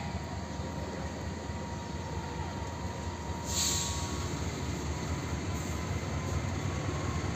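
Diesel locomotive of an approaching passenger train, a steady low engine rumble that slowly grows louder as it nears. A brief hiss comes about three and a half seconds in.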